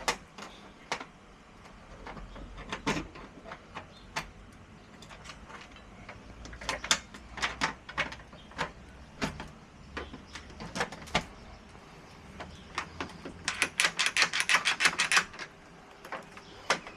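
Scattered metal clicks and taps from patio door handle and lock hardware being fitted and worked, with a quick run of rapid clicks about two-thirds of the way through.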